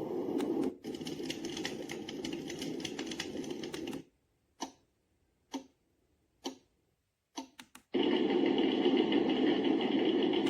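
White-noise sound machine of a Momcozy sunrise alarm clock playing a steady noise sound, which cuts off about four seconds in. A few short clicks follow about a second apart, then a steady noise sound starts again, louder, near the end.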